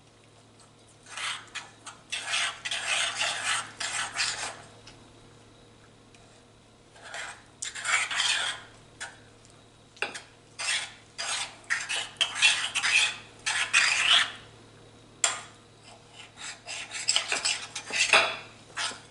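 A spoon stirring and scraping in a bowl, mixing glue, baking soda and contact lens solution into slime. It comes in irregular bursts of scraping and clinking with short pauses between.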